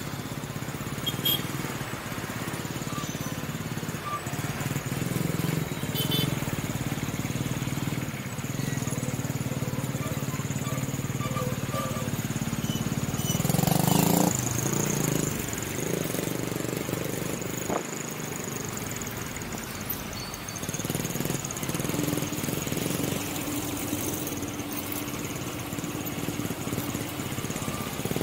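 Busy road traffic: the engines of cars and motorcycles running in a steady mix, with one louder swell about halfway through as something passes close.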